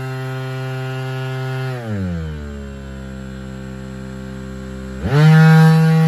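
Makita BO380D 18 V cordless random orbit sander running unloaded, with a steady motor whine. About two seconds in, the whine drops to a much lower speed. Just after five seconds it sweeps quickly back up to full speed.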